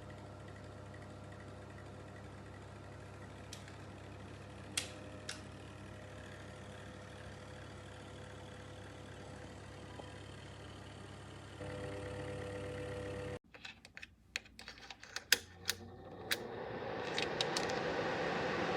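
A small BLACK+DECKER portable space heater running with a steady hum that cuts off suddenly. Several sharp clicks of its controls follow, then its fan starts blowing, growing louder over a couple of seconds.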